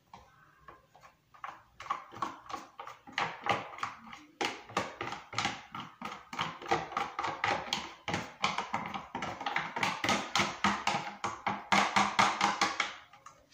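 Metal spoon scraping and tapping thick sourdough starter out of a plastic tub into a plastic jug of water: a fast, irregular run of scrapes and light knocks, several a second, starting about two seconds in.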